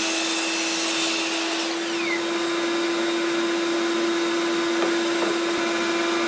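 Craftsman 10-inch sliding miter saw's motor running steadily at full speed for a test cut, a loud constant whine over a dense hiss. A brief falling whistle sounds about two seconds in.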